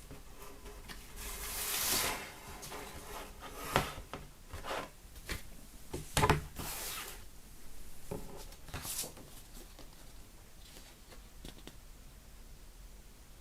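Vinyl record packaging being handled: cardboard and paper sleeves rubbing and sliding, with a few short knocks and taps, quieter over the last few seconds.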